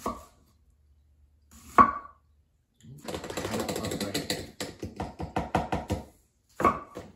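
Chef's knife chopping onion on a wooden cutting board: a couple of single sharp cuts, then a run of rapid chops for about three seconds, then one more cut near the end.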